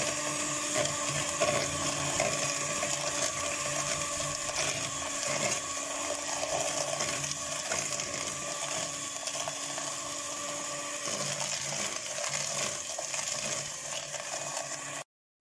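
Electric hand mixer running steadily, its beaters creaming butter and sugar in a plastic bowl. The sound cuts off suddenly near the end.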